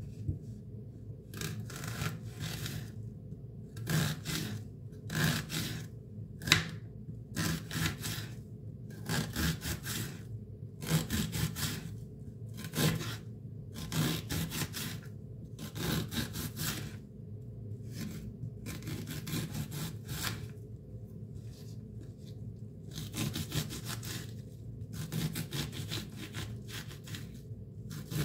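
Kitchen knife cutting through a peeled onion onto a wooden cutting board: a long run of separate crisp cuts, about one a second, some coming in quick pairs.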